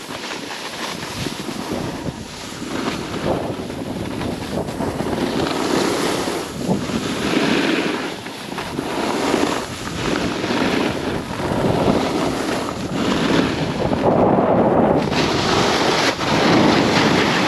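Wind rushing over the microphone while riding a snowboard down slushy, grabby snow, the board's scraping swelling and easing every second or two.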